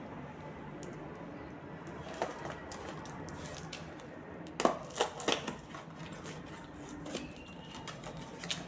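Hands handling a sealed smartphone retail box: scattered sharp clicks and light crackles of cardboard and plastic wrap, with a cluster of louder taps about halfway through, over a steady low hum.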